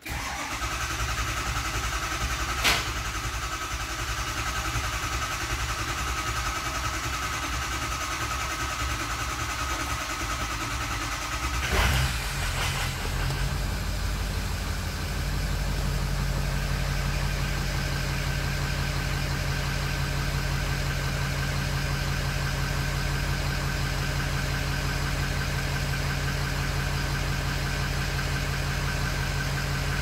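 2005 Ford F-250's 6.0L Power Stroke V8 diesel being cranked by its starter for about twelve seconds while injection control pressure builds, then catching and settling into a steady idle. The no-start from a leaking high-pressure oil system O-ring is cured.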